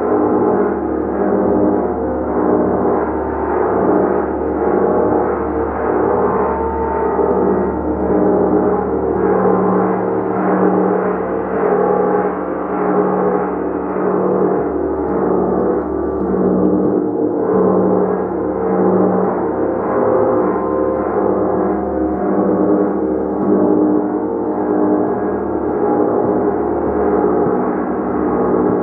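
Gong being played continuously, its strokes overlapping into a dense, sustained wash of many ringing tones that swells and ebbs slightly every second or two.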